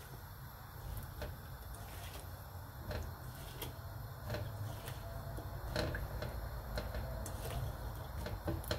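Kitchen handling noises: scattered light clicks and knocks over a steady low hum.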